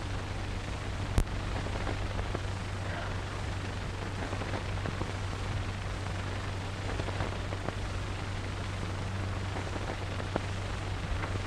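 Hiss and crackle of a worn 1930s optical film soundtrack with a steady low hum, and a single sharp pop about a second in.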